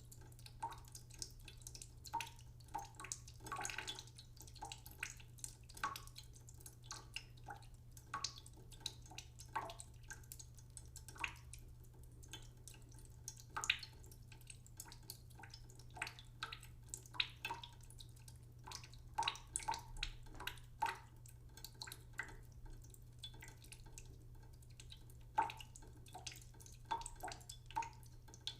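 Water dripping: many irregular drops, a few every second, each a short plink, over a steady low hum.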